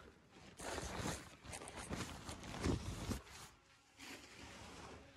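Rustling and scraping noises, a run of them for the first three seconds or so, then fainter.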